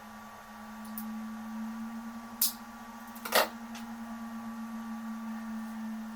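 Stepper motors of a homemade 3D printer running under test, a steady hum with a higher whine above it. Two sharp clicks come near the middle, the second the louder.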